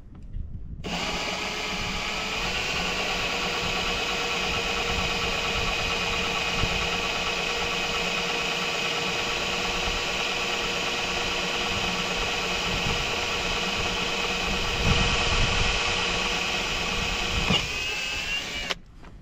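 Kobalt cordless drill running steadily, drilling into a PVC splash rail on a boat hull; its motor pitch rises a little about two seconds in, and it stops shortly before the end.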